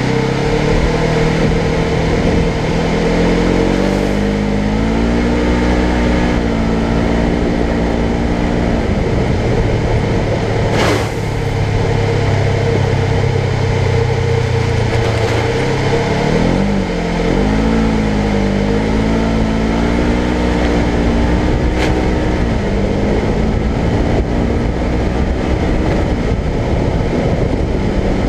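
Polaris General XP 1000 side-by-side's parallel-twin engine running while riding, its pitch rising and falling repeatedly with the throttle, over a steady high whine. A few brief knocks, the clearest about eleven seconds in.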